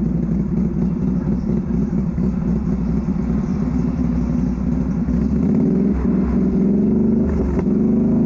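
Off-road vehicle engine running steadily under load on a trail, its pitch climbing a little in the last couple of seconds as it revs up.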